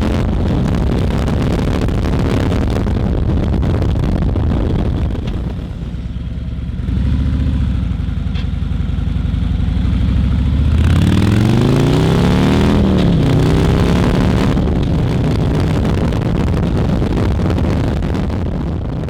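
Harley-Davidson Milwaukee-Eight touring motorcycle's V-twin exhaust running. It drops off briefly, then revs up with a rising then falling pitch a few seconds past the middle, and runs steadily before fading near the end.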